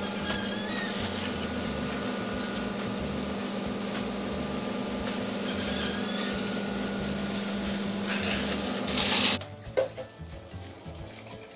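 Water spraying from a garden hose onto plants and soil: a steady hiss with a low steady hum beneath it. About nine seconds in it cuts off suddenly and gives way to quieter water running from a hose into a watering can.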